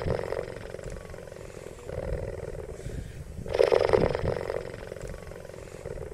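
A cheetah vocalising with a rough, pulsed rasp. It is loudest in two stretches about four seconds apart, one at the start and one about four seconds in, with a lower steady rumble between them.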